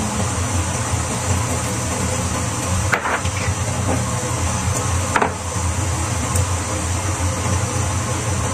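Steady hum and hiss of cooking at a lit gas stove, with two short knocks about three and five seconds in.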